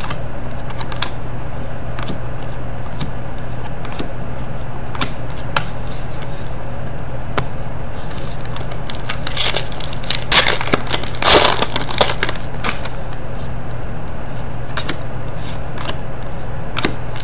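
Trading cards handled and flicked through one by one, making scattered short clicks and snaps. About nine to twelve seconds in there is louder crinkling, like a foil card-pack wrapper being handled. A steady low hum runs underneath.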